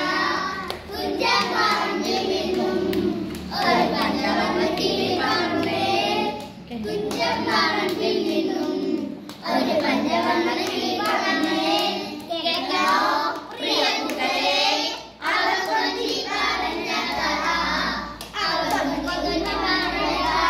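A group of children singing a Malayalam folk song (nadanpattu) together in short repeated phrases, with brief breaks between lines and hands clapping along.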